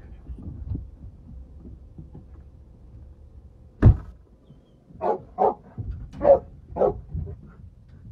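A dog barking: one sharp bark about four seconds in, then a quick run of about five barks.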